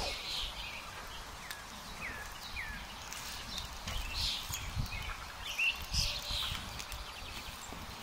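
Wood campfire crackling with scattered small clicks, under birds calling in the woods with a few short falling chirps. Some low thumps around the middle.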